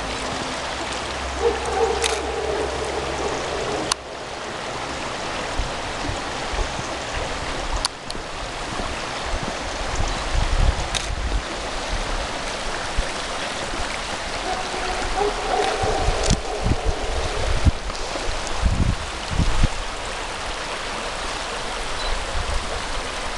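River water flowing steadily, an even rushing with irregular low rumbling bumps in the second half.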